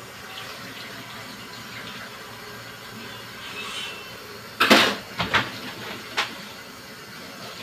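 Dishes and utensils being washed: a steady hiss throughout, with a few sharp clanks and clatters about halfway through.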